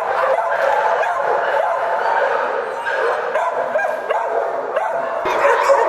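Many shelter dogs barking and yipping at once, a continuous overlapping din with some whimpering mixed in.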